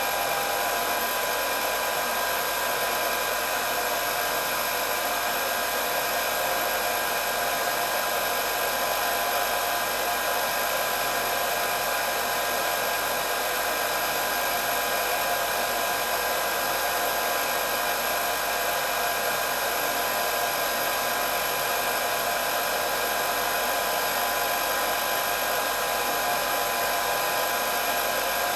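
Electric hair dryer running continuously: a steady airy rush of the blower with a fixed motor whine, unchanging in pitch and level.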